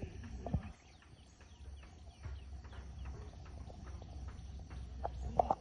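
Many short, quick chirping calls from animals over a steady low rumble, with two louder brief sounds, about half a second in and near the end.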